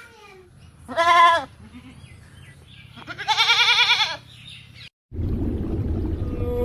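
An animal bleating twice, each call quavering in pitch. About five seconds in, it cuts to a steady low rumble with a held tone.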